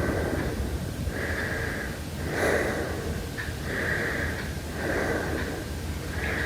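Heavy breathing: loud, noisy breaths following one another in a steady rhythm, about one a second.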